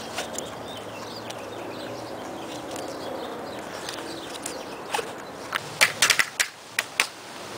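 Camera being handled with fingers rubbing close over the microphone, then a quick series of sharp clicks and knocks about five to seven seconds in.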